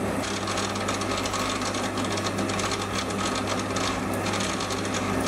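Mini lathe running at about 300 RPM while a high-speed-steel trepanning tool cuts a circular groove into the face of a thick aluminium workpiece: a steady hum from the lathe's drive with a noisy, even cutting sound over it. The cut is running smoothly but slowly.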